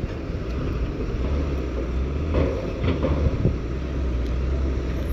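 Heavy diesel engine of earthmoving machinery running with a steady low drone.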